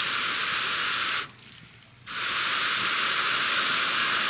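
A loud, steady hiss that stops about a second in and starts again about two seconds in.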